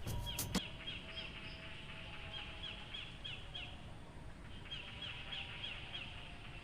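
A bird calling over quiet rural outdoor ambience: two runs of quick, falling chirps, about four a second, with a short break between them.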